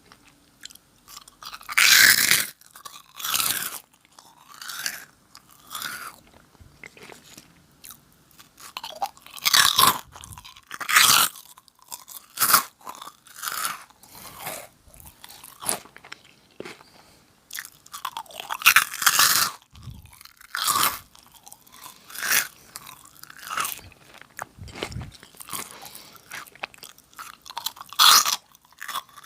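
Close-miked crunching and chewing of Nongshim Jagalchi, a crisp fried snack, in irregular loud bursts of crunch every second or two with quieter chewing between.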